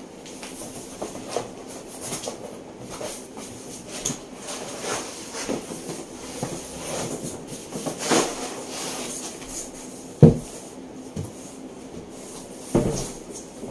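Large flat-pack cardboard box being tipped and shuffled along the floor: cardboard scraping and rubbing, with a sharp thump about ten seconds in and another near the end.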